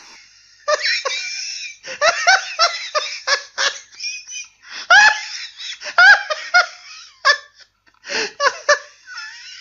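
Hearty laughter in rapid bursts, coming in several fits with short pauses between them, used as a comic laugh effect.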